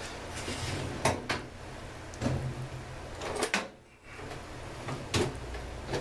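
Tools and metal chainsaw parts being handled on a workbench: a series of sharp knocks and clunks, irregularly spaced, over a low steady hum.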